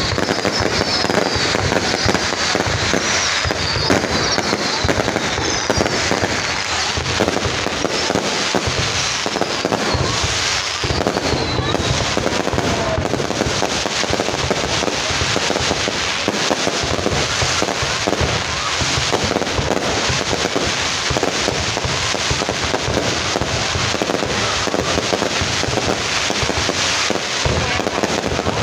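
Loud fireworks display: a dense, continuous barrage of aerial shells launching and bursting, with crackling throughout. Short high falling whistles are heard over the first twelve seconds or so.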